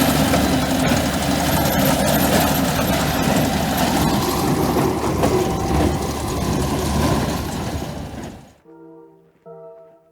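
Case Magnum tractor running on the move, a loud, steady engine and driving noise. It cuts off abruptly about eight and a half seconds in, and brass-led music with held notes begins.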